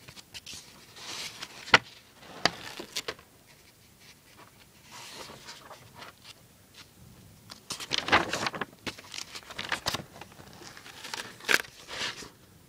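Paper pages of a spiral-bound manual being turned and handled: several short rustles with sharp clicks and taps between them.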